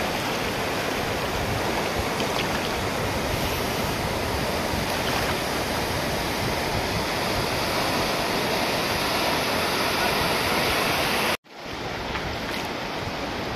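Shallow sea surf washing in over a sandy beach: a steady rush of water. It cuts out abruptly for a moment about eleven seconds in and comes back a little quieter.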